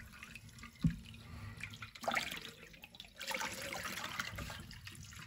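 Tap water running into a bowl of red lentils and mung dal being rinsed in a stainless steel sink, with splashing as the water is swirled and tipped out of the bowl. A single dull knock about a second in.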